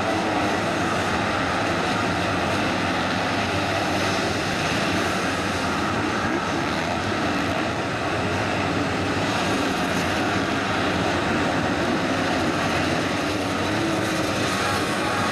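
Many motocross bike engines running and revving together in a steady, dense din as riders pull away from the start line onto the dirt track.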